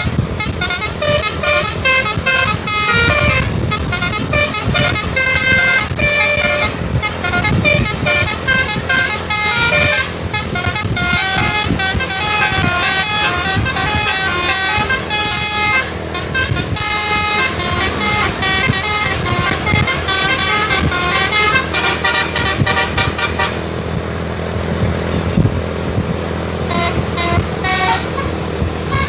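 A tour bus's 'telolet basuri' musical air horn plays fast melodies of short stepped notes, one tune after another. It falls silent for a few seconds near the end, leaving steady traffic noise, then plays a short burst of notes.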